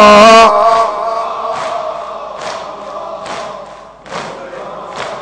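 A male reciter's held sung note ends about half a second in. Then a crowd of mourners beats their chests in unison (sineh-zani), one sharp slap a little under every second, over faint crowd voices.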